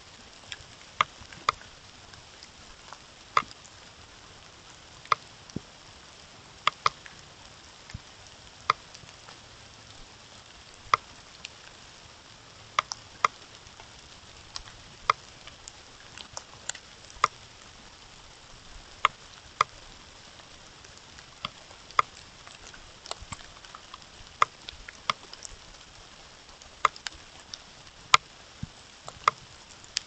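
Irregular sharp ticks, about one or two a second, over a steady hiss.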